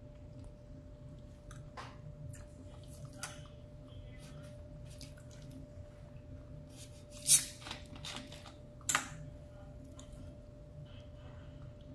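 Close-up eating sounds: soft chewing and small mouth clicks, over a faint steady hum. About seven and nine seconds in come two louder short noises as a plastic soda bottle is picked up.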